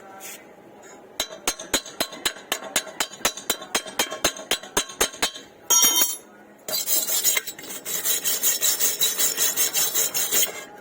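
Chipping hammer tapping slag off a stick weld on steel pipe, about five sharp strikes a second. Near the middle it gives way to a steel wire brush scrubbing the weld in quick, rhythmic strokes.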